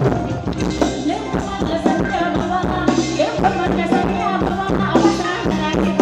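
Live band playing Thai ramwong dance music with a steady beat.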